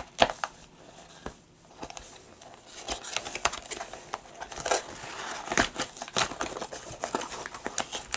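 A cardboard box being opened by hand, fingers prying at its end flap, with rustling, scraping and scattered sharp clicks of cardboard.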